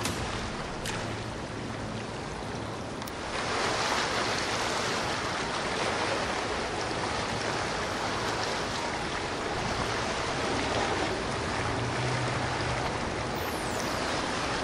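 Steady rush of water from a motor cruiser's hull and wake, louder from about three seconds in, with a faint low engine hum underneath.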